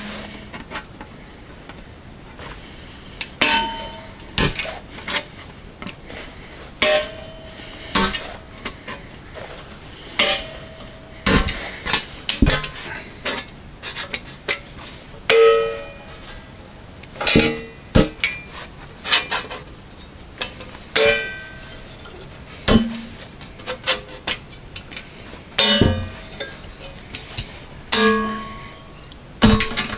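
Vise-grip flanging tool (locking pliers with a stepped jaw) clamping down and releasing step by step along the edge of a thin sheet-metal patch panel, putting a flange in it. Each squeeze gives a sharp metallic clack with a short ring from the sheet, one every second or two at an uneven pace.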